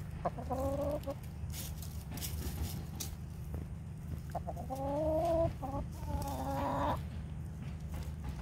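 Backyard hens clucking: a short call about a quarter second in, then a longer run of drawn-out calls from about four and a half to seven seconds in, over a steady low background rumble.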